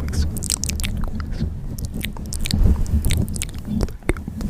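Close-up, amplified recording of insects chewing: dense, irregular crunching clicks over a steady low rumble.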